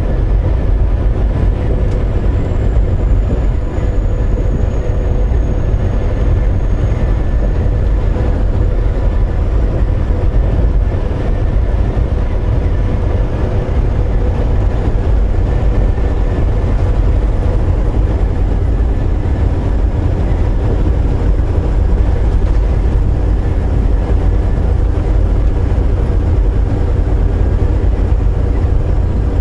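Inside the cab of a Volvo VNL860 semi-truck on the move: a steady low drone of the diesel engine and road noise, with a constant hum.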